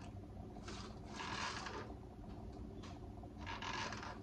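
Fabric rubbing and scraping as it is handled and bound with rubber bands for firecracker tie-dye, in three short swishes with a couple of faint ticks between them.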